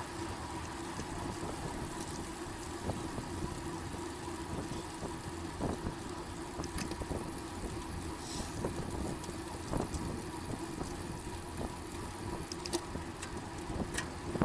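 Steady rolling noise of a road bicycle ridden at speed, from tyres on the road and moving air, with scattered small clicks and rattles.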